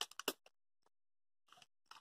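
A few short, faint clicks and taps in the first half-second and again near the end, with near silence between.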